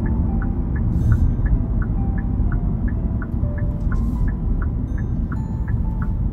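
Steady low road and engine rumble inside a moving Kia car's cabin, with faint background music over it, a quick repeating pattern of short plucked notes.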